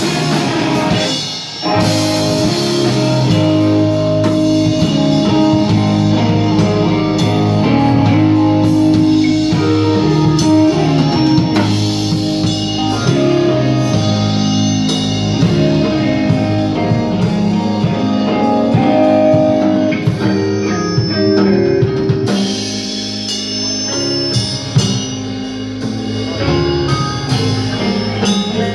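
Live rock band playing: electric guitars and a drum kit, with a brief break about a second and a half in before the band comes back in, and the cymbals dropping away for a couple of seconds about two-thirds of the way through.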